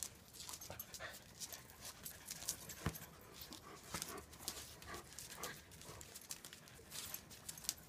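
A small dog panting, with many scattered light clicks and ticks.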